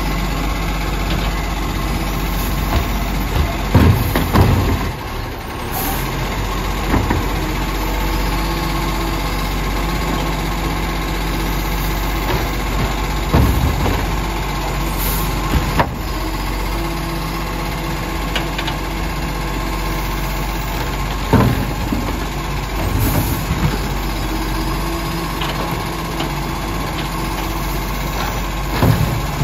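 Side-loading garbage truck's engine running steadily while its automated lift arm grabs, raises and empties wheelie bins. About half a dozen short clunks of bins and the arm break through the engine sound.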